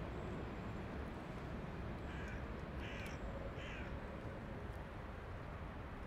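Three short animal calls in quick succession, each falling in pitch, over a steady low background rumble.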